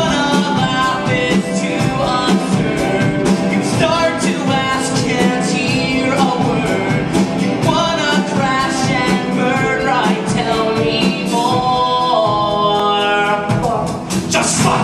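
Rock-musical song performed live: a male voice sings to a band with drums. A long sung note is held near the end.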